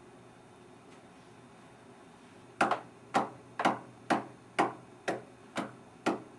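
Quiet room tone, then about two and a half seconds in a steady thumping starts: sharp, short knocks about two a second, evenly spaced like a slow clock, eight of them before the end.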